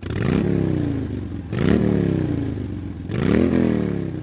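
Motorcycle engine revved three times in quick succession, each blip rising sharply in pitch and falling back more slowly.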